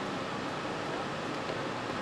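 Steady background noise of a motorcycle factory hall: an even hiss and rumble with no distinct knocks or tones.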